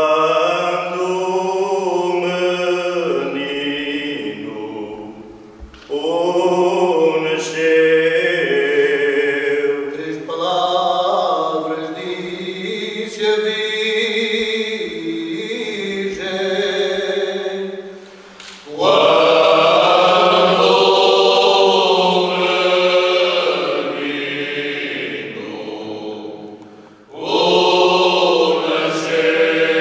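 Men's choir singing cante alentejano unaccompanied, in slow, drawn-out phrases with several voices together. The singing comes in four long phrases broken by short pauses for breath.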